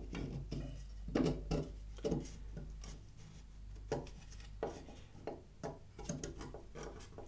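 Threaded steel rod and a 3D-printed PLA mold being handled and fitted together: irregular clicks, knocks and scraping of metal against plastic, with a few louder knocks in the first two seconds.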